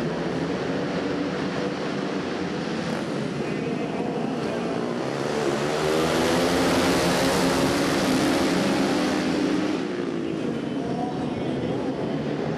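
450-class flat-track racing motorcycles running hard around the dirt oval, engines at high revs. The engine sound swells and bends in pitch as a bike passes close about five seconds in, then drops back near ten seconds.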